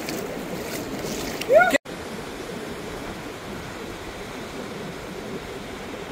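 Steady wash of ocean surf breaking on the beach, with wind noise on the microphone. About one and a half seconds in a short rising-then-falling cry is heard, and the sound cuts out abruptly at an edit just after it before the surf resumes.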